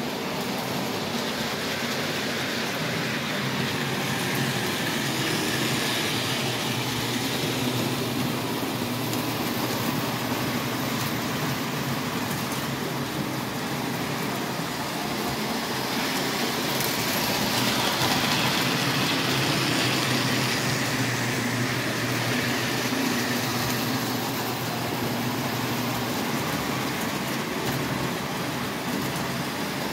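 O gauge model trains running on three-rail metal track: a steady rumble of wheels and motors over a constant low hum, louder for a few seconds past the middle as a train comes close.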